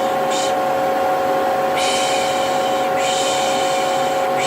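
A vacuum cleaner running with a steady whine, overlaid by a repeated 'pış pış' shushing hiss: a short shush at the start, a long one of about a second in the middle, and another short one at the end.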